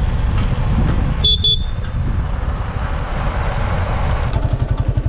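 A vehicle engine running on the move, with wind noise on the microphone, and a horn giving two short toots a little over a second in.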